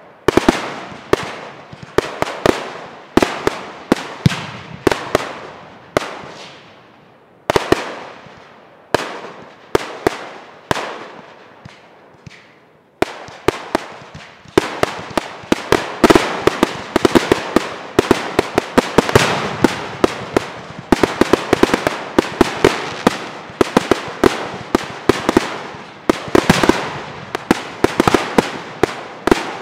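Aerial fireworks going off in a steady string of sharp bangs, a few a second, each with a fading tail. They thin out about eleven seconds in, then pick up again from about thirteen seconds as a denser, faster volley of reports.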